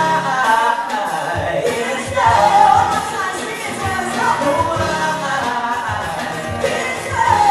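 Live pop band: a female lead singer sings into a microphone over strummed guitar and a steady drum beat.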